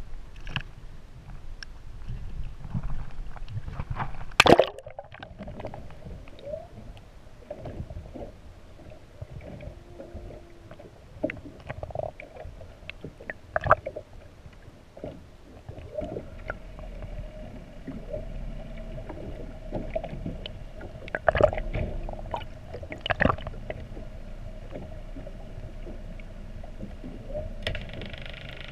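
Splash as a camera plunges under the sea surface about four and a half seconds in, then muffled underwater sound: a steady hum with scattered sharp knocks against the camera housing.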